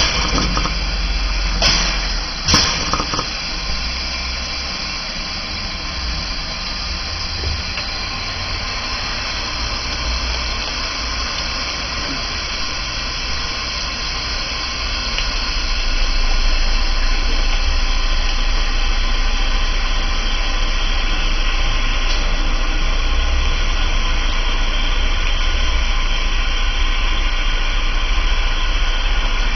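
BR 99 narrow-gauge steam locomotive setting off, with a steady hiss of steam over a low rumble. There are two sharp knocks about two seconds in, and the sound gets louder from about halfway.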